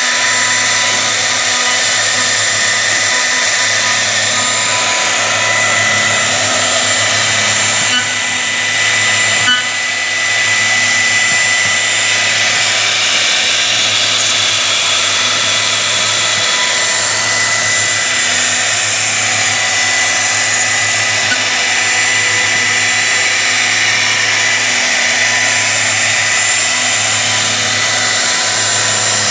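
CNC wood router's HITECO spindle running at high speed while its bit carves a relief into a wooden panel: a steady high whine over hissing cutting noise and a low hum. It dips briefly with a couple of ticks about eight to ten seconds in.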